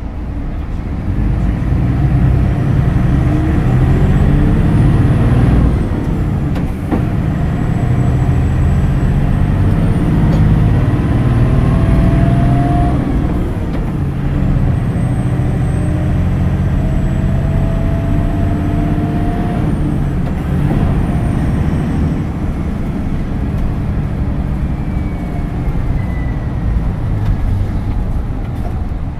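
Hino Blue Ribbon City Hybrid bus under way, its diesel engine and drivetrain running with a heavy low rumble. A rising whine comes twice in the middle as it pulls away and gathers speed, and a falling whine comes near the end as it slows.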